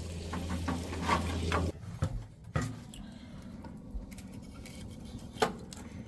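Pork belly sizzling in a pan, cutting off abruptly under two seconds in, followed by a few sharp clinks of utensils or dishes.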